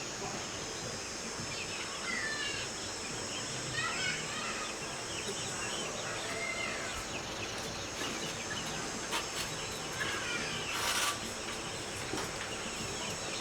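Insects droning steadily at a high pitch, with short chirps now and then and a brief rustle-like burst near the end.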